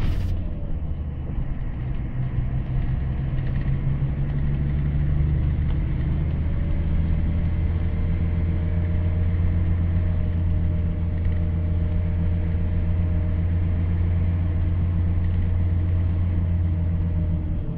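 Scania K124IB coach's rear-mounted diesel engine heard from inside the passenger cabin, running with a steady low drone over road noise as the bus drives.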